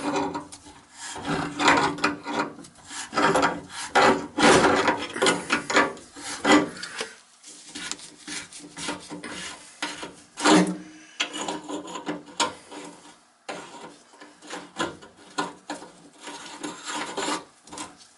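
A cloth rubbed hard back and forth around a white PVC sink drain tailpiece, making a rasping scrub in irregular strokes that come closer together in the first half.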